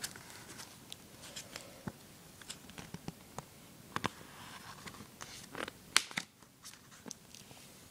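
Quiet room tone broken by scattered small clicks and soft rustles: handling noise from a hand-held recording device.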